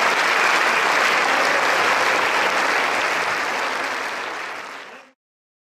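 A large crowd applauding, steady dense clapping that fades out near the end and stops.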